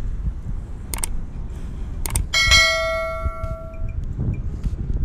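A bell struck once about two seconds in, ringing out for about a second. It sounds over a low rumble with a few short knocks.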